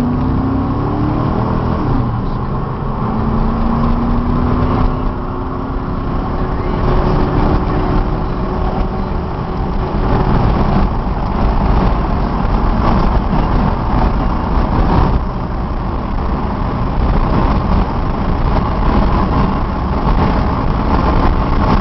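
Chevrolet 5.7 L Vortec V8 in a 1997 Z71 pickup under hard, sustained acceleration toward 100 mph, heard from inside the cab. The engine pitch climbs over the first several seconds, and a heavy, steady rumble of engine and road noise fills the rest.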